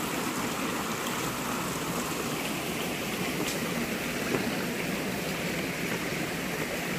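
Shallow stream water running steadily, low in the dry season with only the middle channel flowing.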